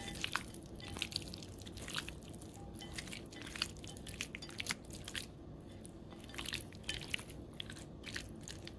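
Bare hands kneading raw chicken pieces in a sour cream and spice marinade in a glass bowl, making soft, irregular wet squelches and small clicks.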